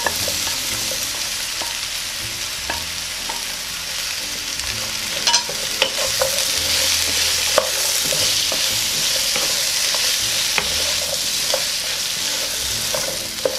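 Chopped onions sizzling in hot oil and garlic in a frying pan, stirred and turned with a wooden spatula. Steady sizzle with scattered light taps and scrapes of the spatula against the pan.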